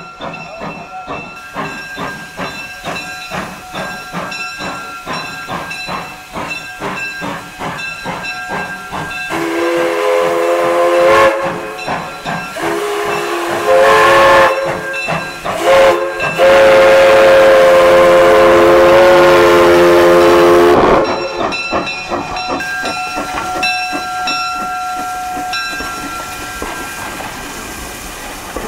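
Viscose Company no. 6 steam locomotive chuffing steadily as it works its train, then sounding its steam whistle in several blasts, the last one long, as for a grade crossing. After the whistle the chuffing carries on.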